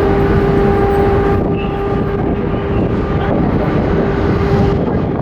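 Large car ferry's engines running with a steady hum over a low rumble as the vessel gets under way.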